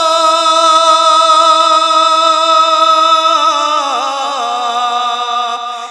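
A man singing a naat unaccompanied, holding one long, slightly wavering note at the end of the word "Madina". About three and a half seconds in the melody turns downward and settles on a lower held note.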